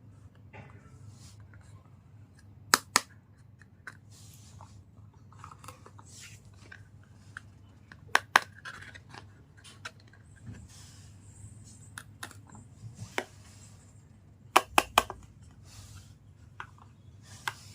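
Small plastic toys and packaging being handled: sharp plastic clicks, a quick pair about three seconds in, another pair around eight seconds and a fast triple near fifteen seconds, with soft scraping and rustling between, over a low steady hum.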